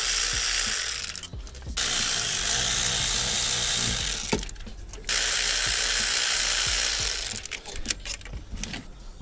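A power ratchet running in three bursts of two to three seconds each, undoing the bolts of the thermostat and EGR housing. Scattered small metallic clicks and knocks follow near the end.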